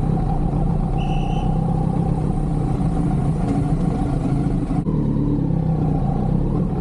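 Kawasaki Z900's inline-four engine running steadily at low speed, with no revving.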